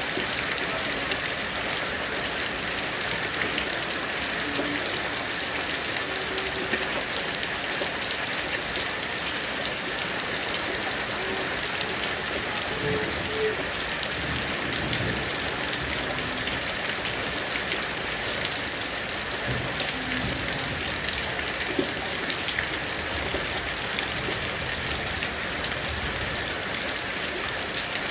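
Rain falling steadily: an even hiss dotted with small drop hits, and a few sharper, louder drops in the second half.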